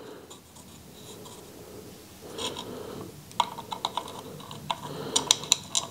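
Light clicking and scraping of small metal parts being handled: aluminium spacers and screws being fitted to a motorcycle tail-tidy bracket, with a quicker run of clicks in the second half.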